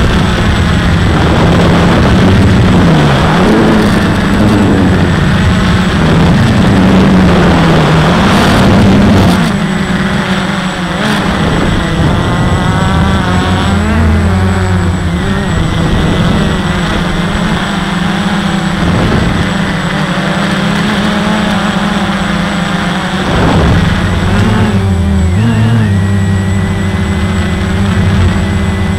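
Walkera QR X350 quadcopter's brushless motors and propellers buzzing in flight, the pitch rising and falling as the throttle changes. A heavy rushing noise sits over the buzz for the first nine seconds or so.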